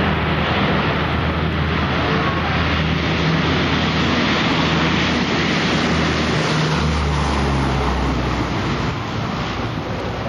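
Lockheed C-130 Hercules four-engine turboprop at takeoff power, its propellers giving a loud, steady drone as it runs down the runway and lifts off. About two-thirds of the way through, the low drone drops in pitch.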